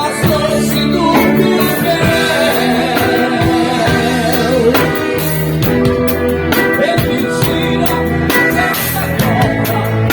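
Live rock band playing a song: drum kit, electric guitars, bass and keyboard, with a lead melody line that bends and wavers in pitch over the steady rhythm.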